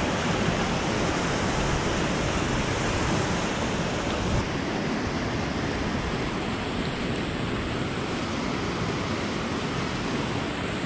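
Steady rushing of a waterfall pouring into the lake and churning the water below.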